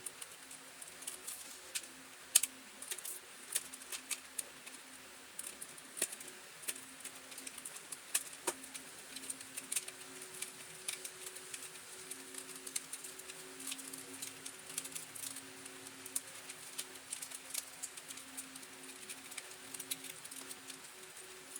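Scattered light clicks and taps of small tools and parts being handled on a bench, over a faint low hum.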